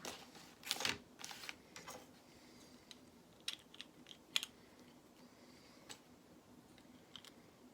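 Plastic Lego pieces being handled and pressed together: a short rustle and rattle of pieces about a second in, then several separate, faint sharp clicks.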